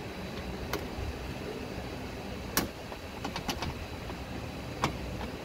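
Plastic trim pieces clicking and knocking as they are handled and pressed into place by hand: a sharp click about two and a half seconds in, a quick run of smaller clicks after it, and another sharp click near the end, over a steady low background noise.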